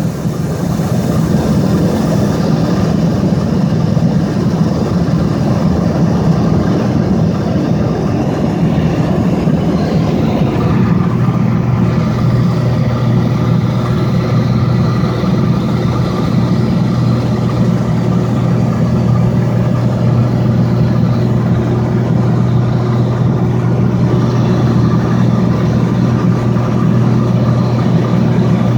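Light aircraft's piston engine and propeller running steadily, with a low, even drone; the engine note shifts slightly about ten seconds in.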